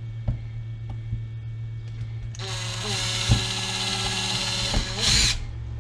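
Cordless drill boring a small pilot hole in wood: a few light handling clicks, then the drill runs for about three seconds with a steady whine. Its pitch rises just before it stops.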